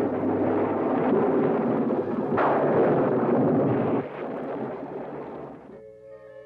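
A loud, sustained rushing noise from a cartoon soundtrack, with a sudden burst about two and a half seconds in that then dies away. Soft music with held notes comes in near the end.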